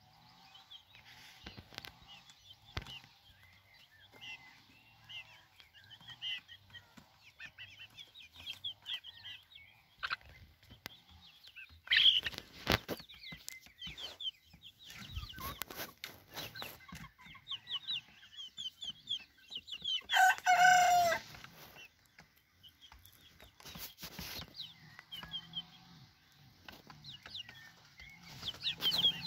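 Young chickens peeping and cheeping in short high notes, with one loud call of about a second roughly twenty seconds in, a young cockerel trying to crow. A few sharp knocks come between the calls.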